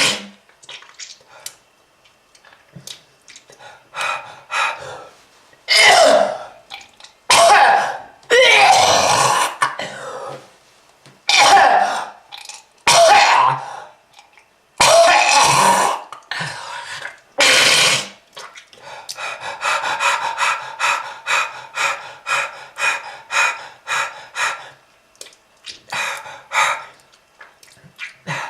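A smoker coughing hard and clearing the throat: several long, harsh coughs, then from about two-thirds of the way through a fast run of short hacking coughs, three or four a second.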